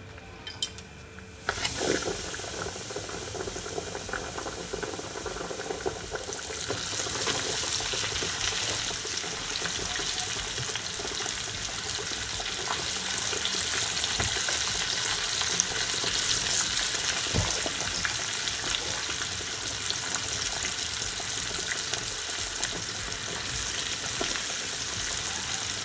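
Floured fish pieces sizzling as they deep-fry in hot oil in a saucepan. The sizzling starts about a second and a half in and grows louder about six seconds in, then holds steady.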